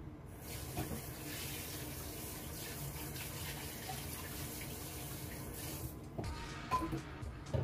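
Steady rush of water that starts about half a second in and cuts off suddenly about six seconds in, followed by a couple of light knocks near the end.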